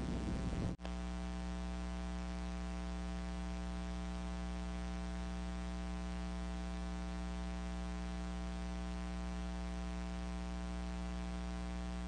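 Steady electrical mains hum with a hiss of static, after a sudden brief dropout just under a second in.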